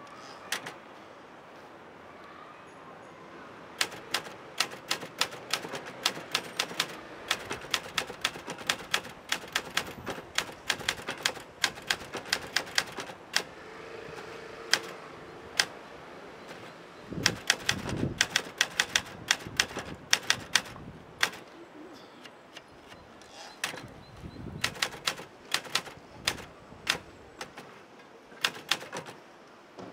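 Portable manual typewriter being typed on: quick runs of key strikes in bursts with short pauses, starting about four seconds in, with a brief low thump midway.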